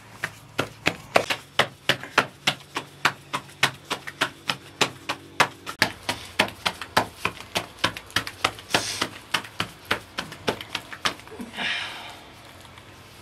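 Thin rolled-out bread dough slapped from palm to palm to stretch it: a steady run of sharp slaps, about three or four a second, ending with a short rustle near the end.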